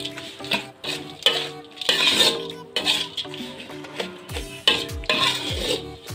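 A metal spatula scrapes and stirs fried anchovies and chili sambal around a wok in irregular strokes. Background music plays throughout, with deep beats in the second half.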